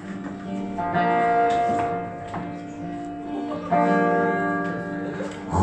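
Acoustic guitar playing chords that are left to ring and fade, with a new chord struck about a second in and another near four seconds.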